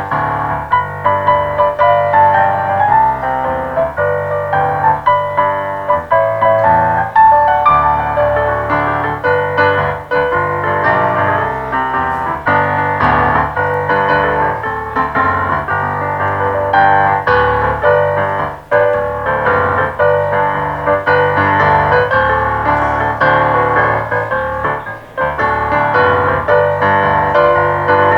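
Piano playing an instrumental piece, a steady flow of notes over held bass notes.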